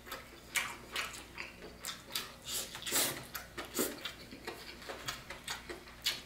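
A person chewing and eating close to the microphone, with an irregular run of wet mouth clicks and lip smacks.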